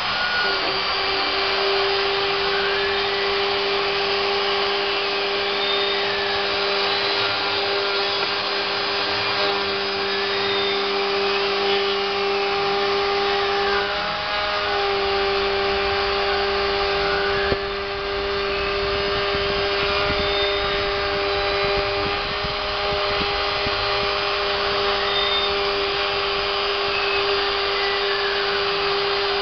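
CNC router spindle running steadily as it mills PVC, a constant whine, with fainter tones from the machine's axis motors slowly rising and falling as the tool moves.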